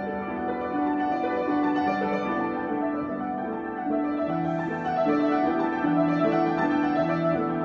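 Piano improvisation: a steady stream of sustained notes in the middle register, with a lower bass line joining about four seconds in.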